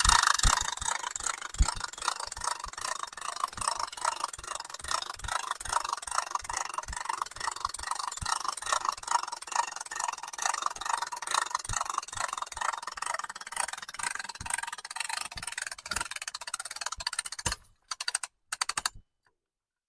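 Hand-cranked CrankRup winch being wound, its ratchet clicking quickly and steadily as the cable draws the ladder stand's straps tight. The clicking stops a couple of seconds before the end.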